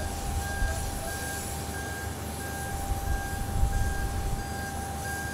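Airport apron ambience: a low steady rumble with a continuous whine, and an electronic beep repeating at an even pace, about three beeps every two seconds.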